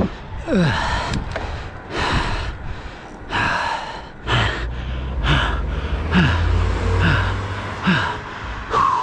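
A cyclist breathing hard and gasping, roughly one loud breath a second, some with a voiced note that falls in pitch: the effort of pedalling an e-bike uphill. A car passes in the middle, a low rumble that fades away.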